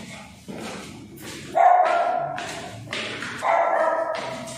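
A dog barking twice, about one and a half and three and a half seconds in, with faint knocks between the barks.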